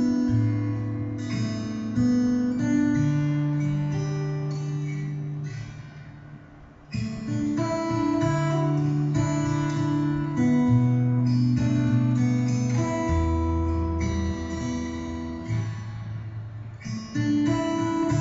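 Acoustic guitar music played back from a CD: slow strummed chords and plucked notes, fading away around six seconds in, then coming back in strongly.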